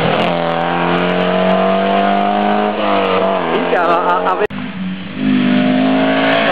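Historic rally car engines at full throttle. First an Alfa Romeo coupé passes close, its engine note held high, then wavering through gear changes about three seconds in. After a sudden cut at about four and a half seconds, a second rally car's engine rises in revs as it approaches.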